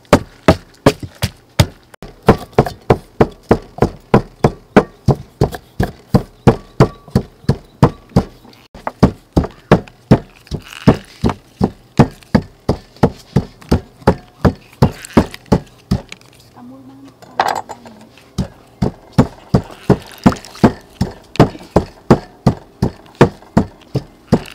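Wooden pestle pounding red chillies in a stone mortar: steady, even strokes, about two to three a second, with a short pause about two-thirds of the way through.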